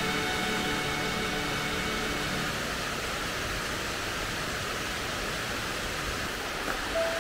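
Steady rushing of a waterfall. Faint background music fades out in the first couple of seconds and comes back near the end.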